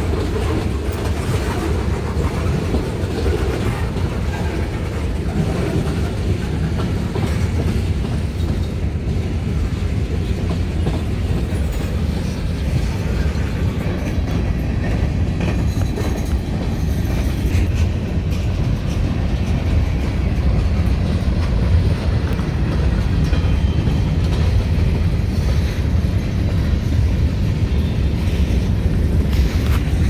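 Norfolk Southern mixed freight train's tank cars and covered hoppers rolling past, their steel wheels on the rails making a steady low rumble.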